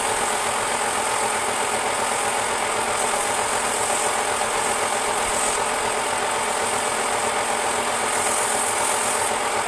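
Wood lathe running steadily while the turning wooden vase is sanded by hand with sandpaper.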